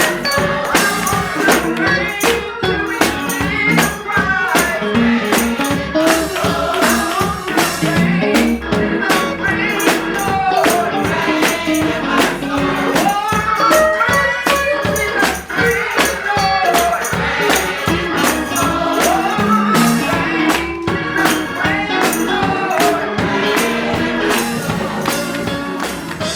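Gospel singing over a tambourine keeping a steady beat, starting to fade out near the end.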